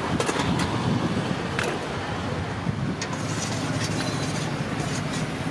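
Steady rumble of road traffic, with a few light clinks of a ladle against steel serving pots.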